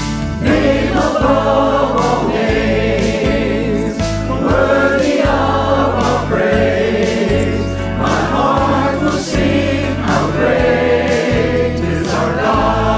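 Worship music: a choir singing long, wavering phrases over a sustained instrumental backing.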